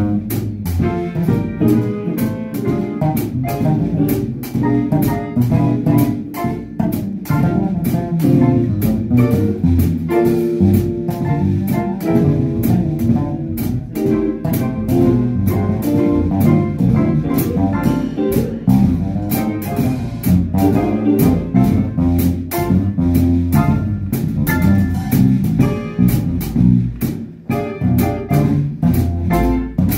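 Live jazz played by a small group: acoustic piano and a drum kit, the drummer keeping time on the cymbals, over a plucked bass line.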